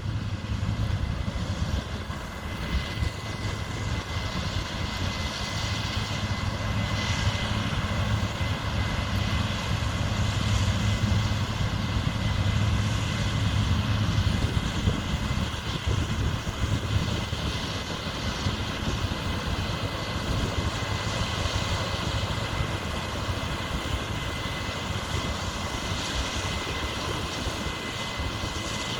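Heavy diesel farm machinery running steadily at field work: a continuous low engine rumble with a thin, steady high whine over it.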